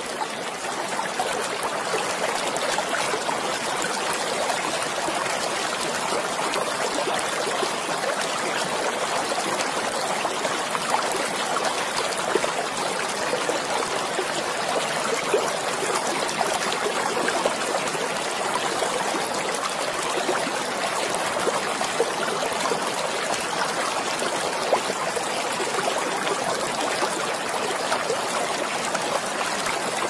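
Stream water running steadily.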